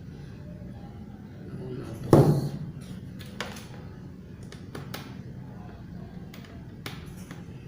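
Handling noise while a cable is plugged into a Novation Launchpad MK2 controller: one loud thud about two seconds in, then scattered small clicks and taps. A steady low hum runs underneath.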